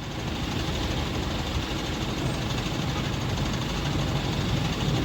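Diesel engine of a Hydra pick-and-carry crane running steadily as the crane lifts, a low rumble that gets a little louder about half a second in.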